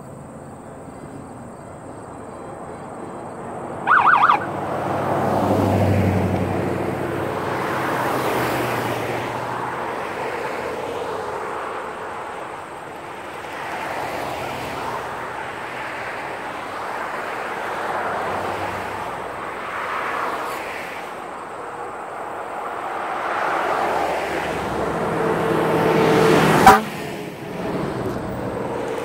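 Convoy vehicles, pickups and trucks, driving past one after another, their engine and tyre noise swelling and fading with each pass. A short horn honk sounds about four seconds in, and a single sharp bang is the loudest moment near the end.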